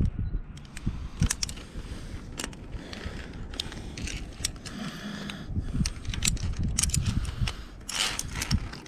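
Via ferrata lanyard carabiners clicking and clinking against the steel safety cable as they are unclipped and clipped back on, in many sharp clicks, with rubbing of the lanyards and gear.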